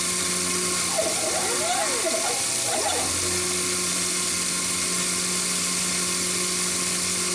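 Taig micro CNC mill cutting a profile in quarter-inch brass plate with an end mill: a steady motor hum and cutting hiss. A whine sweeps up and down in pitch a couple of times in the first few seconds as the axes move and change direction.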